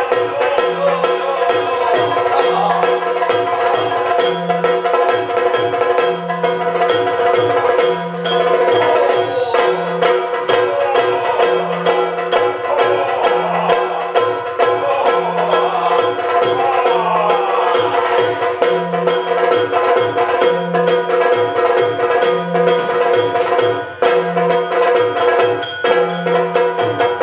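Yakshagana music: a chende drum playing a fast, unbroken rhythm with sharp metallic strokes over a steady drone, with a wavering melodic line at times.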